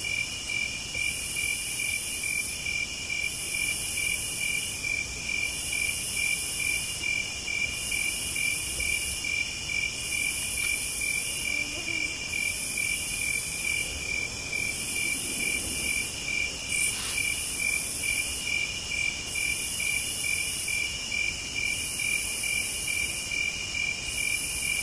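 Crickets chirring: a steady high trill with a fast pulse, over which a higher, thinner buzz repeats about every one and a half seconds, each lasting under a second.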